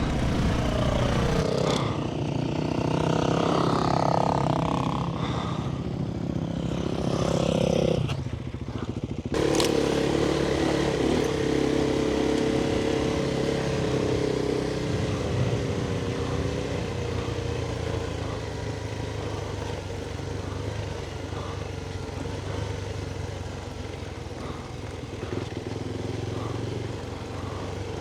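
Adventure motorcycle engine running on the move, its revs rising and falling over the first nine seconds, then holding steadier and easing off a little.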